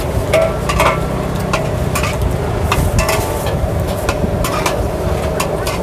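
A metal spatula and tongs clank and scrape irregularly against a large aluminium wok while thin rice vermicelli sizzles in sauce as it is stir-fried, over a steady low rumble.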